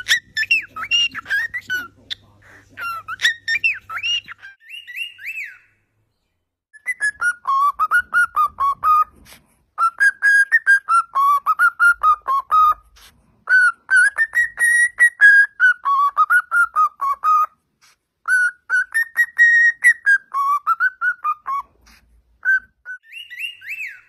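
Cockatiel whistling a tune in four phrases of a few seconds each, the melody rising and falling, after a few seconds of short chirps and warbles at the start.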